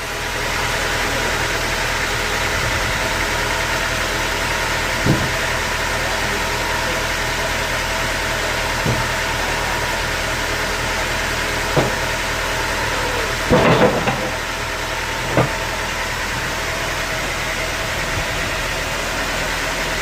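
Sawmill machinery running steadily with a constant engine-like drone, broken by a few sharp knocks, including a short cluster of them about two-thirds of the way through.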